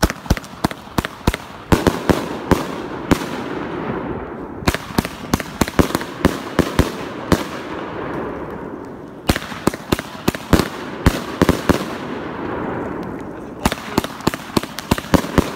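A 500-gram multi-shot firework cake firing in rapid succession: sharp bangs, about three or four a second, over a continuous rushing noise, with brief lulls about every four to five seconds.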